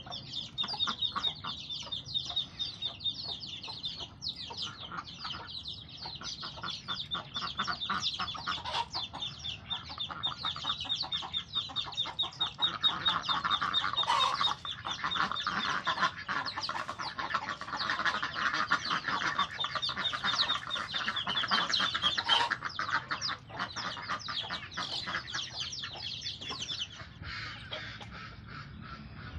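A flock of domestic ducks quacking, with chickens clucking among them; the quacking is loudest in the middle. A steady high trill runs underneath and fades near the end.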